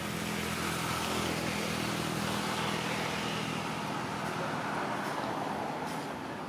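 An engine running steadily: a low even hum with a wash of noise over it, easing off a little near the end.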